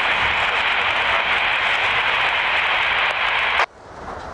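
A loud burst of static hiss from a scanner radio, keyed for almost four seconds and cutting off sharply, over the steady rolling of a passing freight train.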